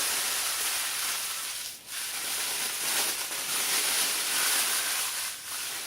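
Steady hissing noise, like spray or sizzling, with two brief dips, about two seconds in and near the end.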